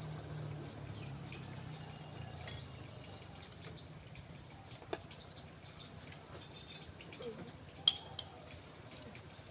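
Light clinks and taps of spoons on ceramic plates and hands handling food during a meal, with one sharper clink about eight seconds in. A faint low hum fades away over the first couple of seconds.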